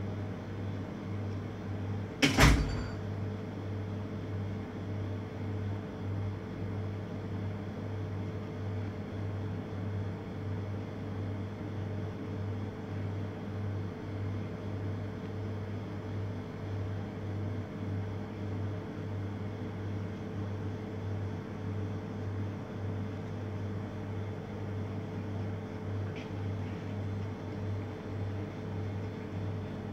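Steady low machine hum in a kitchen, pulsing slightly and evenly, with one sharp loud knock about two seconds in.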